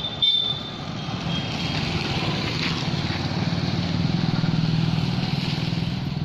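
A motor vehicle's engine running steadily as it drives along a street, growing a little louder about halfway through. A short high beep sounds just after the start.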